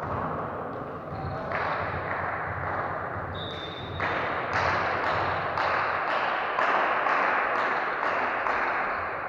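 A referee's whistle gives one short blast about three and a half seconds in. Then comes steady rhythmic clapping at about two claps a second, over a general noise of people in the hall.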